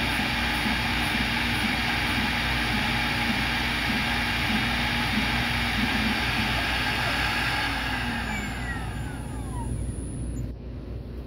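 CNC router spindle and dust extraction running while drilling holes in a copper-clad circuit board: a dense steady whine and rush, with a short low tone repeating about twice a second. About eight seconds in, the spindle spins down, its whine falling in pitch, and the noise drops a little near the end.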